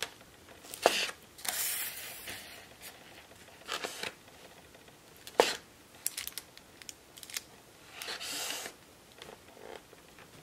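Handling of a foam takeout clamshell and a drink cup: scattered clicks and knocks with short scraping rustles, the sharpest knock about five seconds in.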